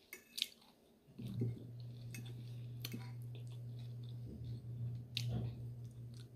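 A person chewing food with the mouth near the microphone: scattered soft wet clicks and smacks. A steady low hum comes in about a second in and continues.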